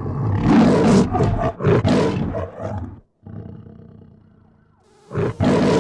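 A lion roaring, the roar of the MGM film-logo intro: several roars in the first three seconds, and another starts about five seconds in.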